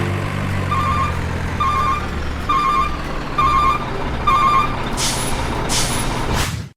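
Large truck's engine running with its reversing alarm beeping five times, about once a second, then two short air-brake hisses near the end.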